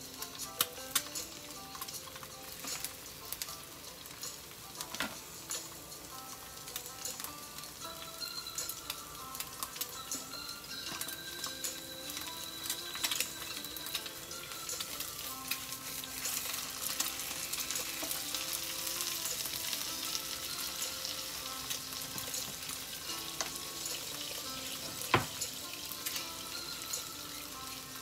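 Grated vegetables and cheese sizzling as they fry in a skillet, with a tortilla heating in a second pan; the sizzle grows fuller midway. Tongs and a spatula tap and scrape against the pans now and then, with one sharp clack near the end.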